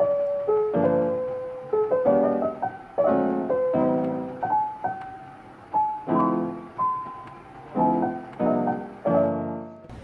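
Background piano music: a simple melody over soft chords, a new chord struck about once a second.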